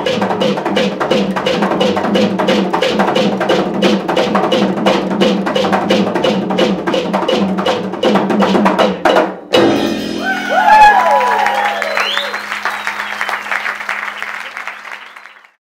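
Upright double bass and hand percussion playing a fast, steady groove that stops abruptly about halfway through, the end of the piece. Audience applause and cheers follow, then fade out near the end.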